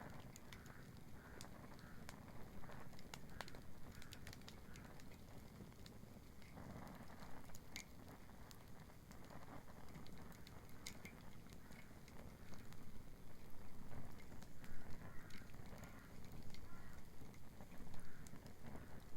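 Wood bonfire crackling, with irregular sharp pops and snaps over a low steady rumble.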